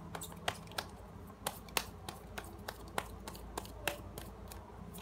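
Cards being shuffled and handled by hand: a rapid, irregular series of sharp clicks and snaps as an oracle card is drawn.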